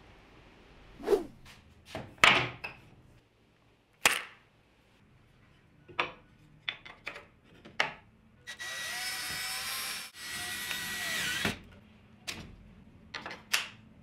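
Wooden pieces knocking and clattering as they are handled and set down, in sharp separate knocks. A little past the middle a power tool runs with a steady whir for about three seconds, in two runs with a short break.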